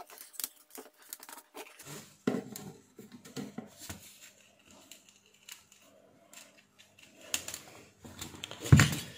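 Handling noise from a plastic electric bug-zapper racket and its wires: scattered light clicks, rustles and scrapes, with a louder knock near the end.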